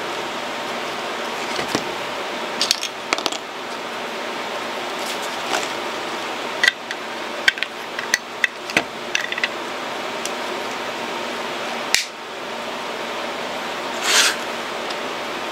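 Handling noise from a JMK freeskate and its plastic flashlight mount: scattered sharp plastic clicks and taps, a cluster of them in the middle and one more about twelve seconds in, then a brief scrape near the end, over a steady hiss.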